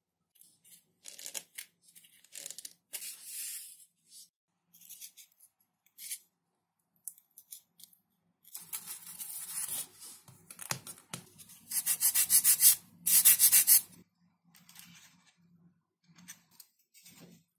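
Blue XPS foam pieces being handled and rubbed by hand, giving intermittent rubs and scrapes, with a louder run of rapid, evenly repeated scraping strokes in the second half.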